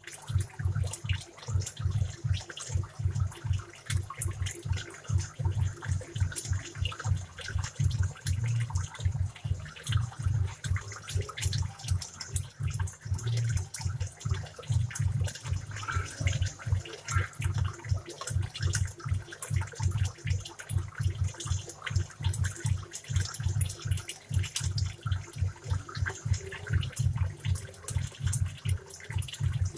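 Aquarium air stones bubbling, a steady, irregular burble of water.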